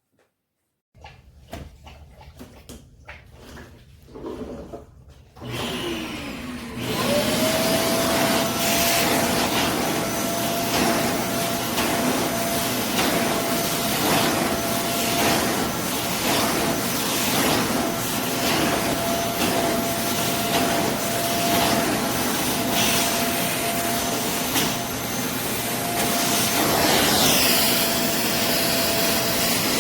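Bissell Zing bagless canister vacuum cleaner: a few faint handling clicks, then about six seconds in the motor is switched on and winds up to a steady whine. It then runs with a loud rush of suction air.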